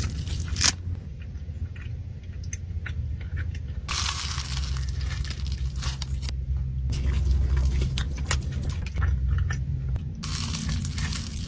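Close-miked biting and chewing of a flaky croissant: crisp crackles and crunches of the pastry over a steady low chewing rumble, with three longer spells of crunching about a third of the way in, past halfway, and near the end.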